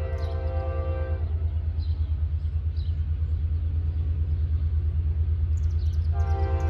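Air horn of an approaching train, a chord of several notes. A long blast ends about a second in and another begins near the end, over a low rumble that slowly grows louder.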